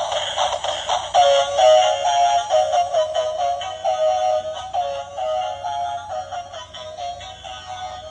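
Tinny electronic music: a quick melody of short stepped notes with no bass, clearer from about a second in.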